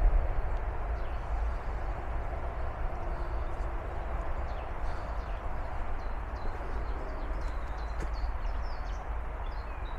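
Outdoor background: a steady rushing noise with a low rumble, and faint bird chirps now and then, mostly in the second half.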